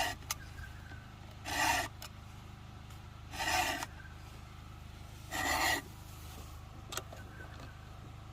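Hand file rasping across a chainsaw chain: four separate strokes, each about half a second long and roughly two seconds apart, with a couple of light clicks. A steady low hum runs underneath.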